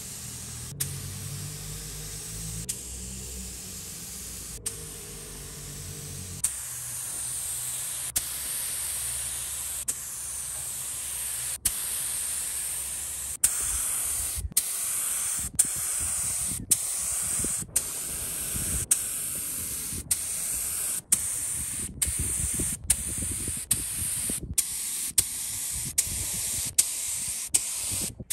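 Gravity-feed air spray gun hissing steadily as it lays a coat of paint on a motorcycle fuel tank. The hiss is broken by many brief gaps and clicks, most often in the second half.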